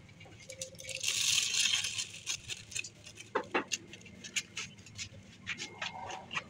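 Soft handling noises around a plastic bowl of thick bait batter: a brief rustle about a second in, then scattered light clicks and taps, with the silicone spatula stirring the wet batter near the end.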